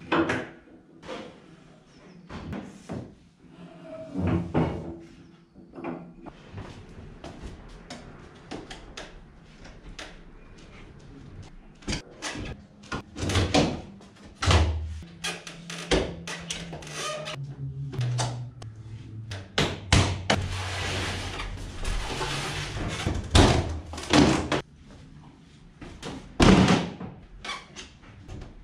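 Knocks, clatters and wooden thumps from unpacking a scissor lift: metal lift parts being handled and the lid of a plywood shipping crate being lifted off and set down, with a few seconds of steady noise about twenty seconds in.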